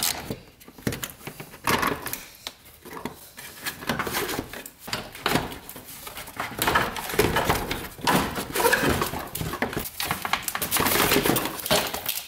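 Irregular clicks, knocks and scrapes of hand tools and plastic parts as screws are taken out of a car's radiator fan shroud.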